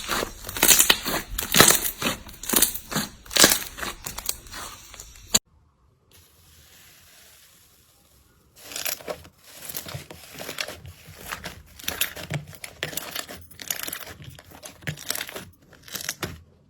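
Slime being squeezed and pressed, crackling and popping in quick bursts. The crackling cuts off suddenly about five seconds in, and after a quiet gap of about three seconds a softer run of crackles starts.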